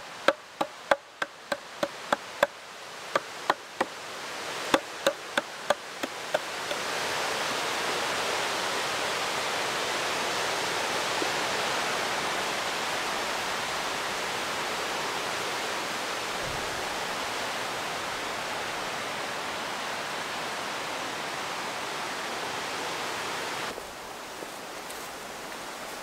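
About twenty sharp wooden knocks of a hand tool striking a log on a chopping stump, irregular at two to three a second, stopping about six seconds in. A steady, even hiss follows and drops away shortly before the end.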